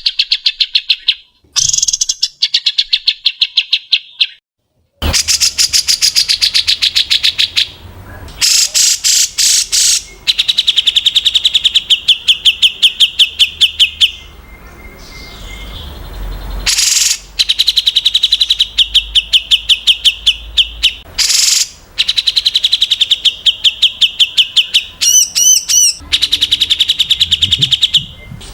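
A songbird singing rapid-fire repeated sharp notes, the 'tembakan' (shot) style prized in competition birds, at about eight notes a second on a steady pitch. The notes come in runs of a few seconds that start and stop abruptly, with a few warbled notes near the end.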